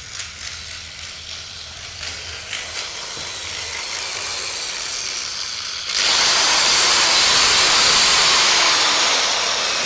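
A hissing sound that slowly grows louder, then a much louder, harsh hiss that starts suddenly about six seconds in and keeps going. It is a torture-tool sound effect in a binaural horror audio drama.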